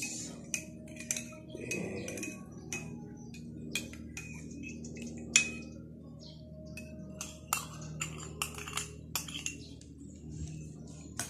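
Metal spoon clinking against a ceramic coffee mug and a ceramic bowl of rice: a string of separate, sharp clinks with short ringing, scattered irregularly. The loudest comes about five seconds in.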